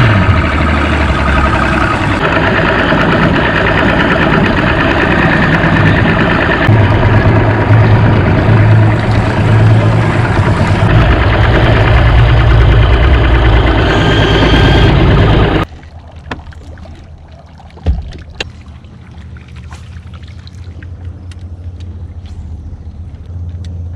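Bass boat's outboard motor running under way, with heavy wind and water rush. The sound then drops off abruptly to a much quieter background with a single sharp knock and a low steady hum.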